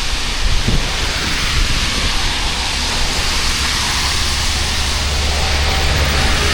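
Heavy rain falling steadily, a dense even hiss, with a low rumble underneath.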